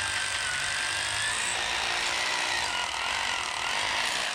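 Hammer drill running continuously, drilling a hole for a wedge anchor, with a wavering motor whine over the rattle of the hammering. It stops near the end.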